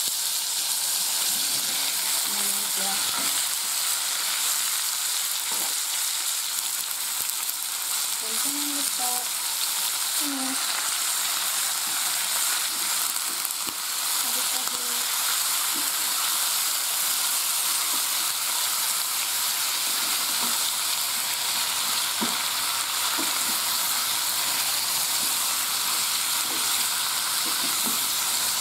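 Sliced bitter gourd sizzling as it stir-fries in a pot of hot oil, with a steady hiss. A wooden spatula stirs and scrapes through the slices, giving scattered light knocks against the pot, more of them in the second half.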